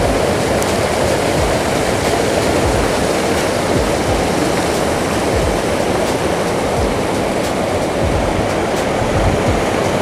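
Small waterfall and mountain stream rushing over rocks: a loud, steady rush of water, with occasional low bumps on the microphone.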